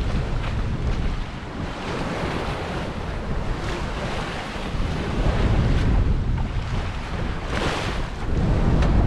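Wind buffeting the microphone over water rushing and splashing along a sailboat's hull under way, with a louder splash about three-quarters of the way through.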